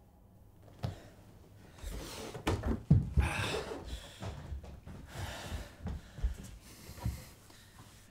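A man breathing hard and gasping in distress, mixed with knocks and thuds against furniture, the loudest knocks about three seconds in.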